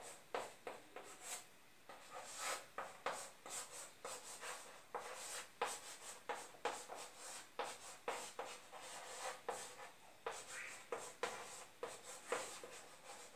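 Chalk scratching and tapping on a blackboard as a line of text is written: a faint, quick series of short, irregular strokes.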